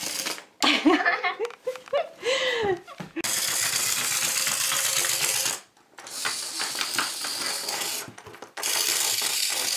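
Radio-controlled toy caterpillar crawling across a hard floor: its motor and gear mechanism run with a fast, dense clicking rattle. It starts about three seconds in and runs in three stretches, with two short stops between them.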